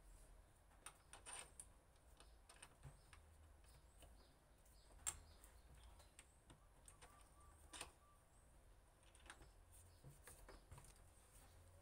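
Faint, irregular scratches and clicks of a small toothed saw blade drawn across a wooden knife handle, scoring anti-slip grooves into the grip.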